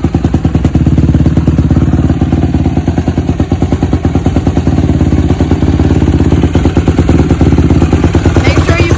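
Honda CRF150R motocross bike's single-cylinder four-stroke engine running steadily and loud at idle, warming up so the oil drains warm.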